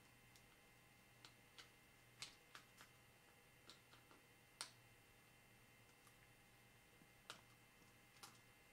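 Faint, irregular small clicks and ticks of a precision screwdriver working the tiny screws inside a MacBook Air, over a faint steady hum.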